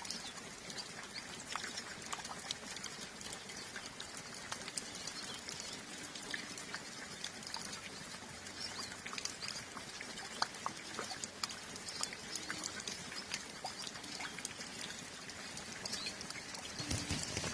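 Steady calm rain with water dripping in many small ticks, under the high chirping of a flock of hooded siskins (pintassilgos). A brief louder, lower sound comes in near the end.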